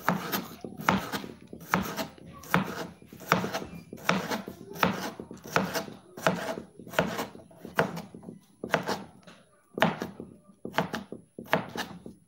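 Kitchen knife dicing a peeled cucumber, each cut knocking on the cutting board, a steady cut about every three-quarters of a second.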